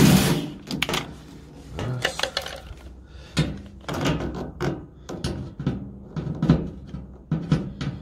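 AEG cordless drill-driver backing out the screws of a washing machine's rear panel in short whirring bursts, with clicks and knocks from the bit and the metal panel.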